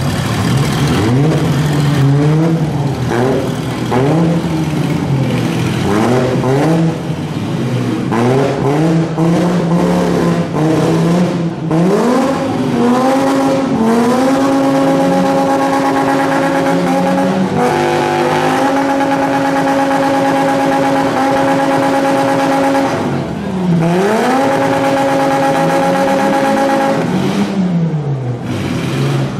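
Demolition-derby cars' six-cylinder engines revving up and down, with a few sharp knocks in the first half. About halfway through, one engine is held at high, steady revs for several seconds, dips briefly, climbs back, and then falls away near the end.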